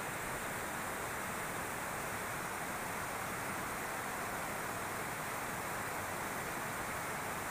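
Fast-flowing river water rushing steadily, an even, unbroken wash with no distinct splashes.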